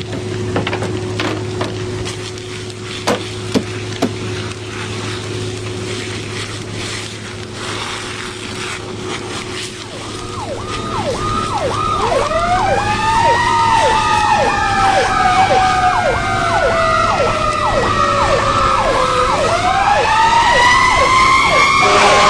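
Fire engine sirens: about halfway in, a fast repeating yelp starts, joined by a wailing siren that rises, falls slowly and rises again, getting louder. Before that there is a steady hum with a few sharp clicks.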